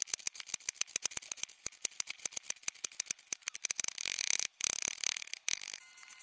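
Large knife chopping fast through a crumbly bubble bar onto a cutting board: a rapid run of crisp chops and crunching, thickest about four seconds in, which stops suddenly near the end, leaving faint hiss.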